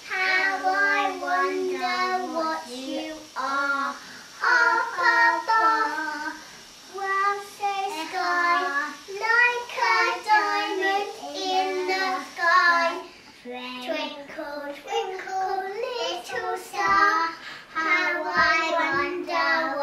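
A young girl singing a song unaccompanied in a child's voice, with short breaths between phrases.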